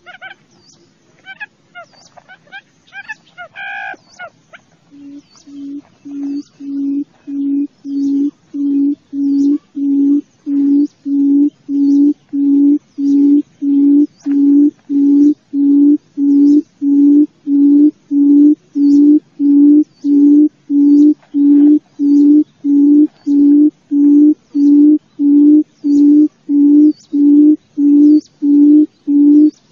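A forest quail (chim cút rừng) calling: a long series of low, evenly spaced hoots, about one and a half a second, that starts about five seconds in and swells over some ten seconds before holding steady. A few higher bird chirps come before the hoots.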